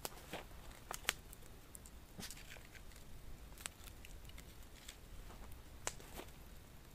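A small wood campfire crackling with a handful of sharp snaps and ticks spaced irregularly, while sticks are laid on it.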